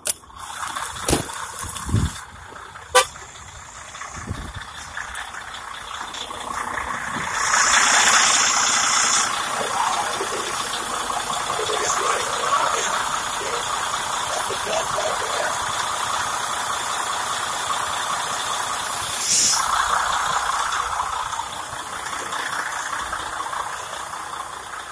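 Truck engine running after its broken drive belt has been replaced, with a few sharp clicks near the start and a brief hiss about eight seconds in.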